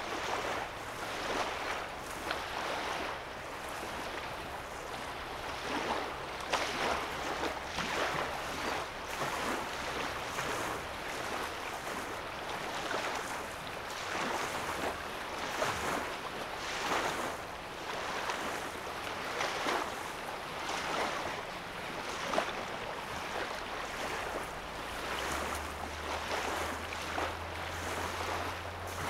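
Small lake waves lapping and washing on a sandy shoreline, a soft splash every second or two.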